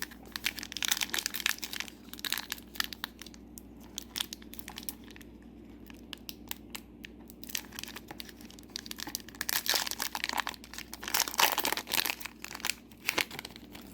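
A Disney Lorcana booster pack's wrapper being torn open and crinkled: a long run of short crackles and tearing sounds, busiest in the last third.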